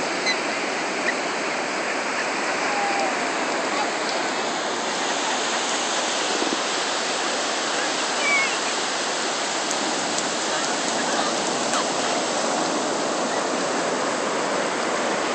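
Ocean surf breaking and washing up the beach: a steady, continuous rush of water noise.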